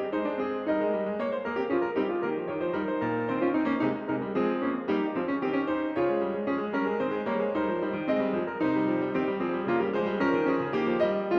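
Background piano music: a steady, continuous stream of notes.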